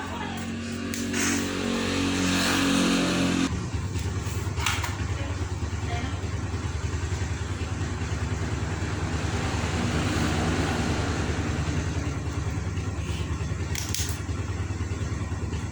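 A motor running steadily with a fast, low pulsing hum. Its pitch shifts for the first few seconds, then it settles into an even drone about three and a half seconds in.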